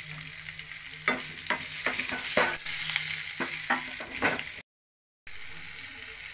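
Hot oil sizzling steadily in a frying pan with peanuts, cashews, dal, garlic and green chillies, broken by a string of short crackles and knocks as the chillies go in and the pan is stirred with a spatula. The sound cuts out completely for about half a second in the last third.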